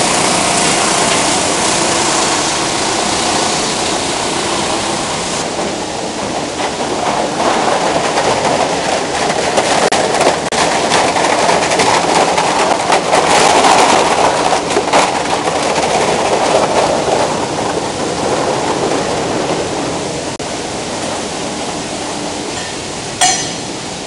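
Machinery of a plastic film washing and recycling line running: a loud, steady mechanical din with dense rattling that builds to its loudest around the middle. A single sharp click comes near the end.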